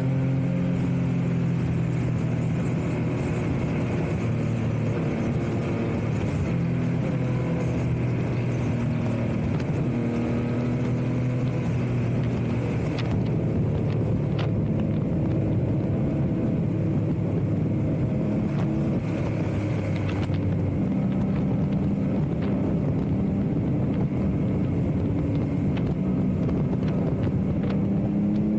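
Yamaha MT-09's inline three-cylinder engine running steadily at highway cruising speed, with wind noise over the camera microphone.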